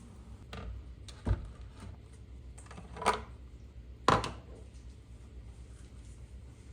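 Objects being handled and set down: three short sharp clacks over a low steady hum, the last the loudest.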